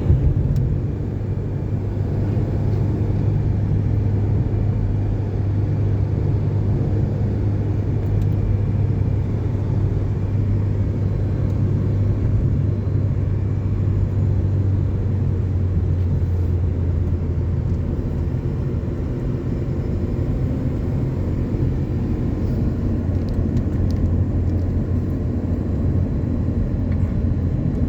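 A car's engine and tyres giving a steady low rumble while driving.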